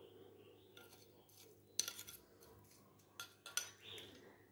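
Metal spoon clinking against a ceramic bowl while scooping lemongrass salt: a few light, separate clinks, the sharpest about two seconds in.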